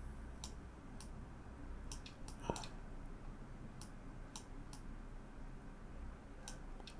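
Faint, scattered clicks of a computer mouse and keyboard, about a dozen at irregular intervals, the sharpest about two and a half seconds in, over a faint low hum.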